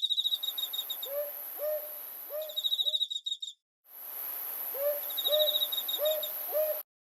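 Repeated low hooting bird calls, about two a second, over a fast high pulsing trill and a steady high whine. The sound cuts off abruptly about three and a half seconds in, resumes a moment later, and stops short again near the end.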